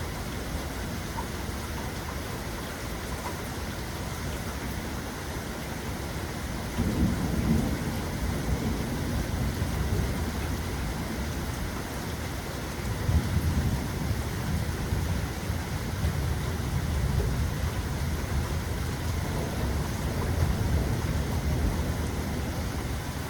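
Steady rain falling with rolling thunder: a low rumble breaks in about seven seconds in, and a longer one starts near the middle and rolls on in swells for several seconds.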